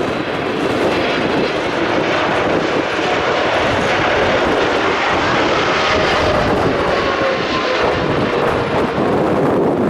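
Jet airliner's engines running loud and steady, with a whine that falls slowly in pitch over the second half.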